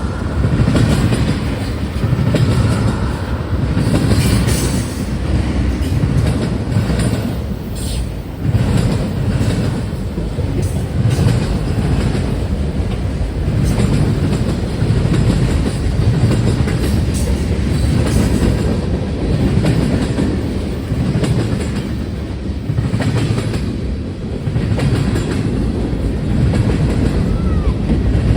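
CN freight train cars rolling past at track side, a steady rumble with the clatter of wheels over the rails.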